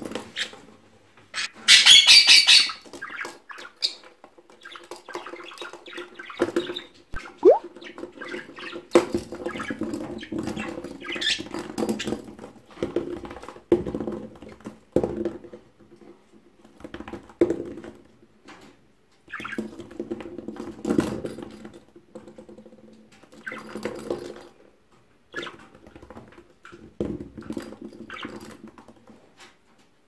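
Budgerigar scrabbling and playing on the plastic floor of its cage: scratchy rattles, small clicks and the rolling of its toy balls, with soft bird sounds in between. A loud, harsh parrot squawk comes about two seconds in, from the Indian ringneck parakeet.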